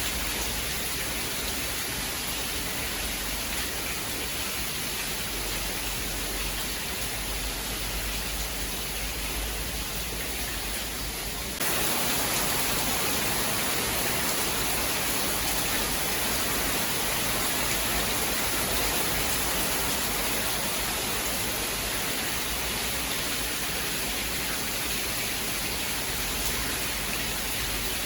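Steady rain, a dense even hiss with no thunder. About eleven seconds in it abruptly shifts to a louder, brighter hiss.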